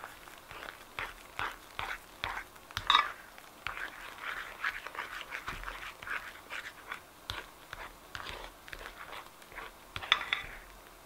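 White foam being stirred and folded with a small pink stirrer in a glass baking dish: soft, wet squishing and crackling strokes coming irregularly, with a couple of louder squelches about three seconds in and near the end.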